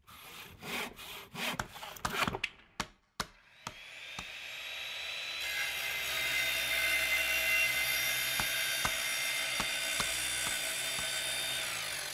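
Workshop tool noise: a quick run of sharp knocks and scraping strokes, then a steady power-tool cutting noise with a held whine that runs for several seconds and stops near the end.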